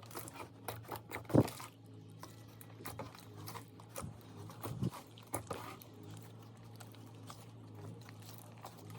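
Thick slime being squished and worked by hand, giving scattered sticky clicks and crackles, a couple of them louder, over a low steady hum.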